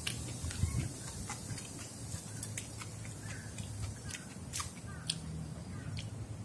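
Eating sounds: scattered small clicks of wooden chopsticks picking at rice in a plastic lunch container and soft chewing, over a low steady hum.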